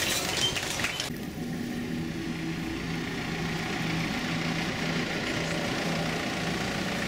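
A minibus engine idling steadily, with an even low hum. It takes over about a second in, after a short stretch of busier noise.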